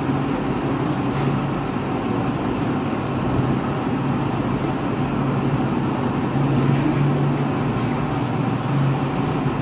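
A steady low mechanical hum with a constant low tone, unchanging throughout.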